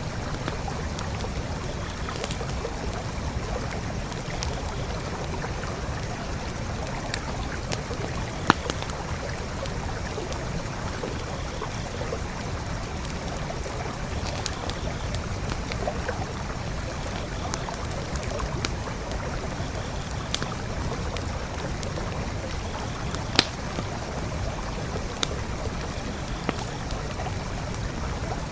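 A creek flowing steadily, with a campfire crackling over it in scattered sharp pops; two pops stand out, one about a third of the way in and one near the end.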